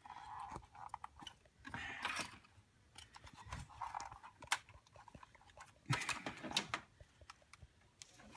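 Intermittent handling noise: scattered light clicks and short rustles as engine parts, wiring and the camera are moved about, with a sharper click about four and a half seconds in.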